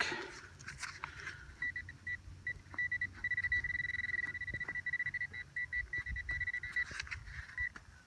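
Metal detecting pinpointer beeping as it is probed into a freshly dug hole: separate high beeps close together, merging into one unbroken tone for a few seconds, then breaking up into beeps again, the sign that it is right on a metal target in the soil. Light scrapes and clicks of soil being handled.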